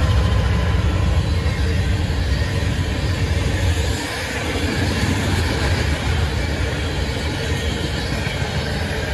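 A diesel-hauled freight train passing close by. The low rumble of the Norfolk Southern locomotives fades about four seconds in, and a steady rolling noise from the tank cars and covered hoppers carries on.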